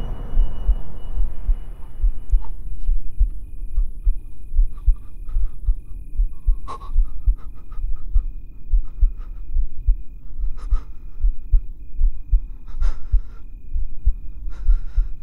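Heartbeat sound effect: low, fast, regular thumps, with a faint high tone pulsing on and off and a few sharp clicks.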